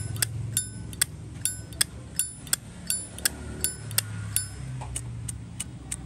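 A Zippo lighter's hinged lid flipped open and snapped shut over and over, about two to three sharp metallic clicks a second. Many clicks carry a short ringing tone, which is the crisp lid sound Zippo collectors prize and which this lighter's seller calls "phê", really satisfying. The clicking slows near the end.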